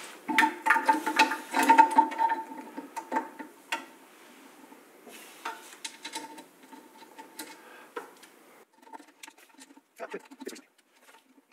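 Small metal hardware (screws, spacers and brackets) being handled and fitted on the bench: a run of light clicks and taps, dense in the first few seconds and sparser later, over a faint steady whine that stops about seven seconds in.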